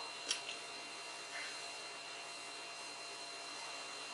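Steady low background hiss and hum with a faint high-pitched whine, and one small click shortly after the start.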